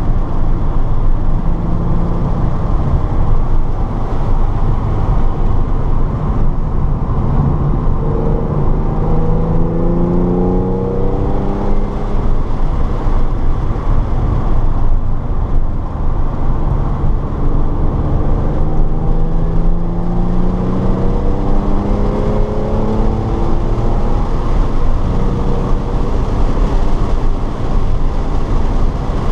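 Car lapping a race track, recorded inside the car: steady loud wind and road noise, with the engine note rising under acceleration about a third of the way in and again past halfway.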